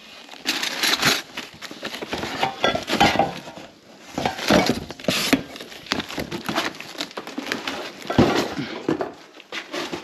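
Cardboard box flaps rustling, bubble wrap crinkling and stainless steel kitchenware clinking as gloved hands rummage through a packed box, in irregular bursts.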